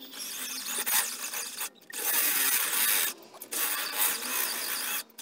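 Cordless drill with an oiled step drill bit boring through a metal bracket, making a harsh scraping cut. The cut breaks off briefly twice, about two and three seconds in, and stops just before the end.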